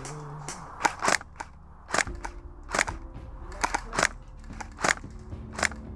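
Airsoft guns firing single shots, about a dozen sharp cracks at irregular spacing, some in quick pairs.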